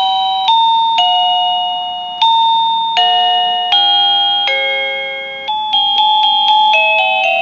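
Plug-in receiver of a wireless musical doorbell playing one of its 36 preset chime tunes: a melody of electronic bell-like notes, each struck and fading, a new note every half second to a second.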